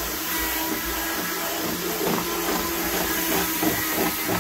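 Cordless drill running steadily as its bit cuts a hole through the plastic diesel-heater fuel tank. From about halfway in, the bit chatters roughly as it bites through the wall.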